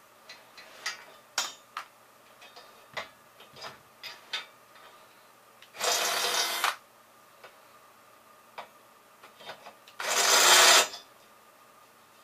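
Cordless drill running in two bursts of about a second each, around six and ten seconds in, the second one louder, driving bolts into the metal printer frame. Before and between them come scattered light clicks and knocks of parts being handled.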